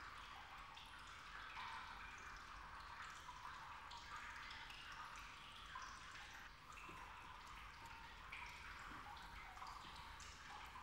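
Faint water dripping and trickling, many small irregular drops with no pause.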